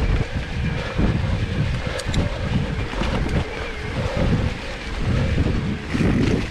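Wind buffeting the microphone of a handlebar-mounted camera on a moving mountain bike, in irregular low gusts, mixed with tyre noise and rattling from the bike on a dirt trail. A couple of sharp ticks about two seconds in.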